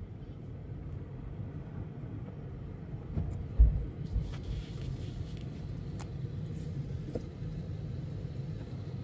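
Steady low rumble of a car moving at low speed, heard from inside the cabin: engine and tyre noise. A few low thumps come just before halfway, the loudest of them the loudest sound here.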